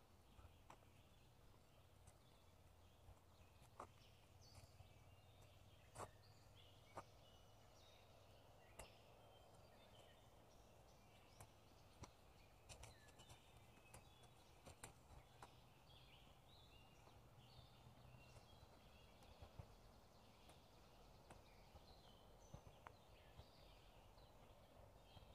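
Faint woodland birdsong, many short chirps and calls from several birds, over a low steady background hum. Occasional soft ticks of footsteps on a dirt path.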